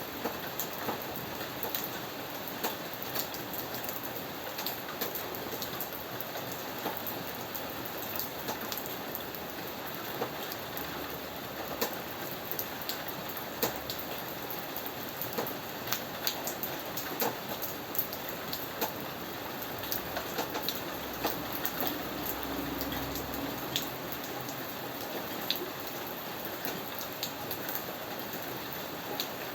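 Steady rain falling, with many sharp individual drops ticking on a hard surface. A low rumble swells briefly about two-thirds of the way through.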